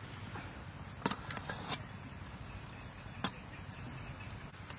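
Metal spoon clinking against a steel serving tray as sauce is spooned onto it: a handful of short, sharp clinks over a steady low hum.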